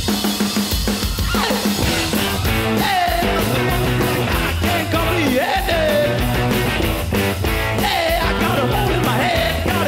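Garage punk band playing live: shouted lead vocals over distorted electric guitars and fast, driving drums.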